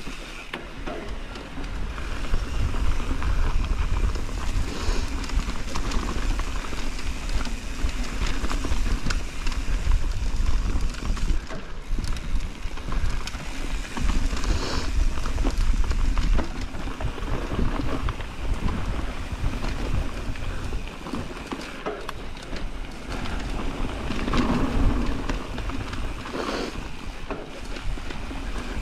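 Mountain bike riding down a loose dirt trail: wind buffeting the microphone, with tyres crunching and the bike clattering and clicking over bumps.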